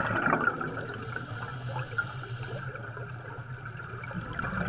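Underwater bubbling: a steady stream of air bubbles gurgling, over a low steady hum.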